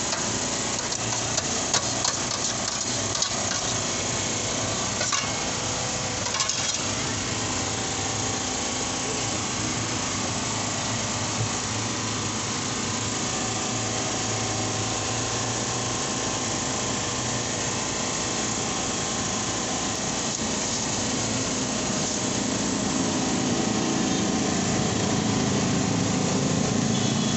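Busy street-food stall background: a steady wash of traffic engines and distant chatter, with scattered clicks and scrapes of a knife and utensils on the stall's steel in the first few seconds. The traffic grows a little louder near the end.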